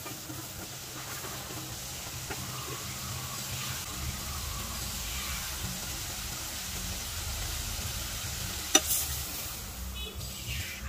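Chicken curry gravy, thinned with water, bubbling and sizzling steadily in a pan as it cooks down, with a single sharp click near the end.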